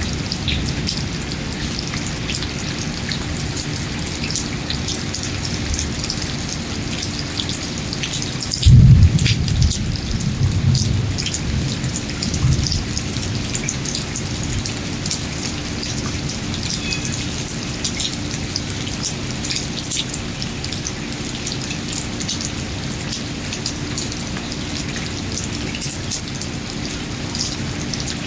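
Steady rain falling, with many individual drops ticking close by. About nine seconds in, a loud low rumble swells and dies away over a few seconds.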